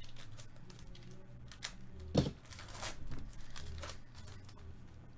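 Foil trading-card pack wrapper being torn open and crinkled by gloved hands, a run of scattered crackles with a sharper crackle about two seconds in.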